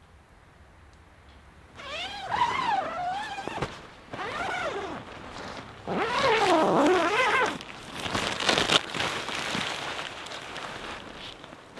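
A pack of coyotes howling and yipping: wavering calls that rise and fall in pitch, starting about two seconds in, with several voices overlapping near the middle and rougher yips after.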